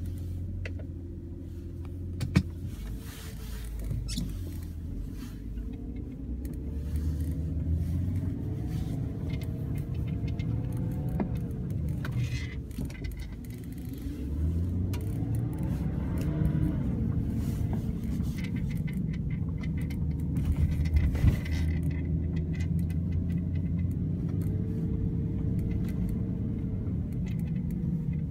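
BMW 328i convertible heard from inside the cabin at about 25 mph: the engine's hum rises and falls in pitch as the car accelerates and brakes. A few sharp knocks come through, the loudest about two seconds in; the owner believes these are an object rolling in the retractable roof.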